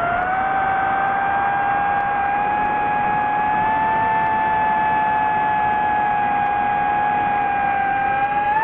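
DJI FPV drone's motors and propellers whining steadily in flight, a high held tone over a rushing hiss. The pitch rises slightly just after the start and again near the end.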